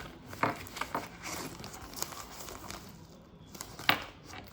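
Light crinkling and rustling with a few sharp clicks as a small belt bag and its packaging are handled.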